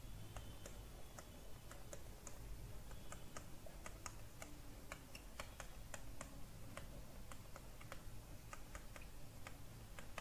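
Faint, irregular light clicks and taps, several a second, of a stylus on a digital writing tablet as numbers are handwritten, over a low steady hum.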